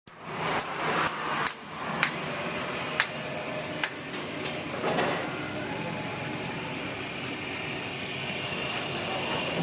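Carrot washing machine running with a steady whirring hiss, with about eight sharp, irregular knocks over the first five seconds.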